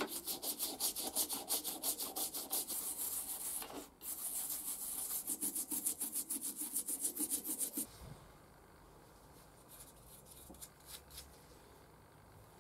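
Toothbrush scrubbing the wet cast-iron frog of a hand plane: rapid back-and-forth bristle strokes, with a short break about four seconds in, stopping about eight seconds in, after which there is only faint room noise.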